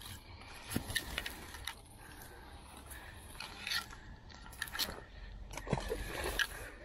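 Close handling noise: reed and grass stems brushing and scraping against the action camera, with scattered clicks and rubs as hands fiddle with a reed stem.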